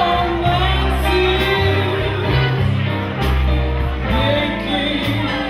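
A live band plays with a woman singing into a microphone, drums and guitar behind her.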